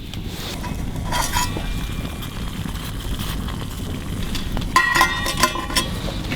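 Metal spoon and cookware clinking and scraping during a meal of fried rice, with a knock about a second in and a cluster of sharp ringing clinks about five seconds in, over a steady low rumble.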